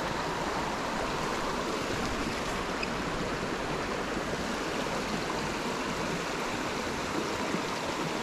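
Small, shallow, rock-bottomed stream flowing: a steady rush of water.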